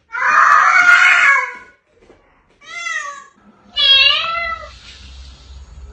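A domestic cat meowing twice in short, wavering calls. Before them comes a longer, louder and harsher cry in the first two seconds.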